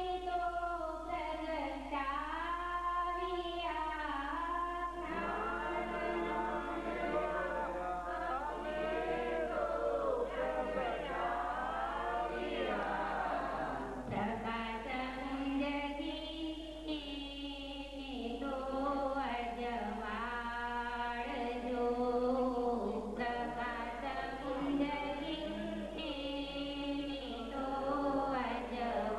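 Voices singing a melody with long held notes that slide up and down, without a break.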